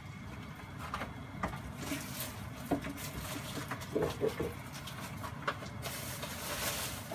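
Small knocks and clicks of hands handling a raw quail and kitchenware at a sink, scattered over a steady low background rumble.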